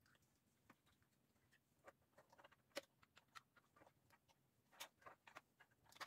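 Near silence with a few faint, scattered small clicks: plastic wiring-harness connectors being handled and pushed into a car stereo head unit.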